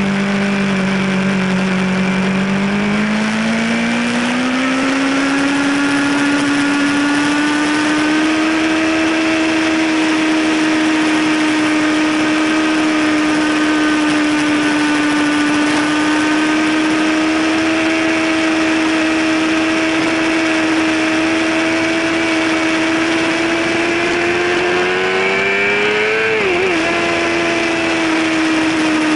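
Yamaha sportbike's inline-four engine pulling hard under way, with a steady rush of wind noise. The engine note climbs over the first few seconds and holds high and steady. About 26 seconds in it rises again, then dips sharply and recovers.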